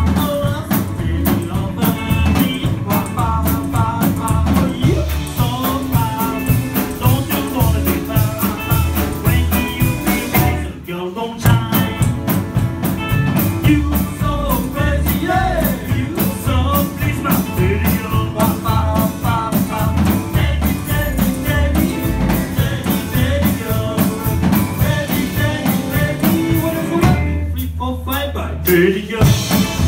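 A live rock 'n' roll band playing, with male singing over upright double bass, drums and electric guitar on a steady beat. The band stops briefly about eleven seconds in, then plays on.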